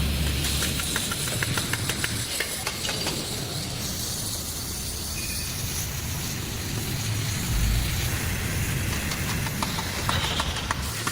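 Steady hissing machinery noise with a low rumble, with runs of sharp metallic clicks about a second in and again near the end.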